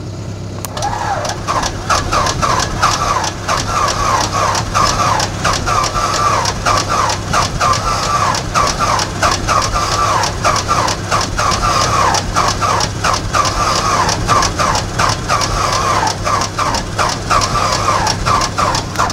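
Starter cranking the 1947 Beechcraft Bonanza's six-cylinder horizontally opposed engine, which turns over without firing. The engine has sat unused for about 20 years. Under the low steady hum, a whine dips and rises about twice a second.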